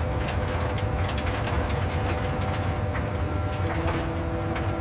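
Steady industrial machinery rumble with a faint hum and scattered light clicks.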